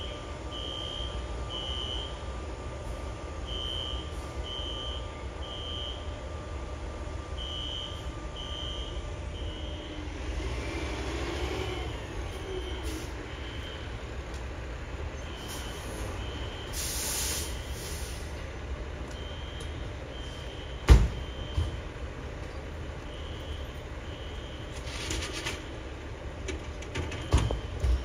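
Distant Wheelock fire alarm horns sounding the temporal-three evacuation pattern: three short, high-pitched beeps, then a pause, repeating, fainter in the second half. Steady traffic rumble underneath, with a brief hiss partway through and sharp knocks near the end.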